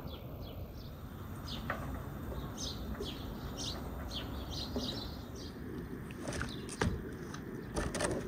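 Small birds chirping, a steady run of short, quick, falling notes several times a second. A few sharp clicks and knocks cut through near the end.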